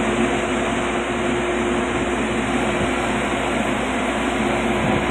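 Steady drone of a running engine with a constant hum, unchanging throughout.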